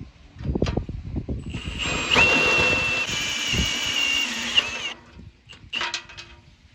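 A handheld power tool running on metal for about three seconds with a steady high whine, after a few knocks, then stopping.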